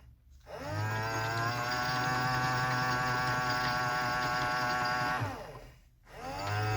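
Washing machine drum motor tumbling the load in the main wash: a motor whine rises in pitch as the drum picks up speed, holds steady for about four and a half seconds, then falls away to a brief stop and starts rising again near the end, as the drum reverses direction.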